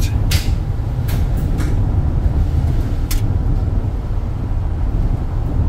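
Engine and tyre rumble inside the cab of a U-Haul rental truck driving on a wet road. A few sharp clicks or knocks come in the first second and a half, and one more about three seconds in.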